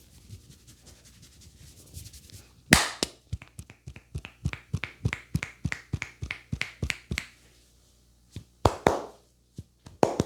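A barber's hands massaging a head: soft rubbing, then about three seconds in a fast, even run of chopping and slapping strokes, about four or five a second. Near the end come a few separate, louder slaps.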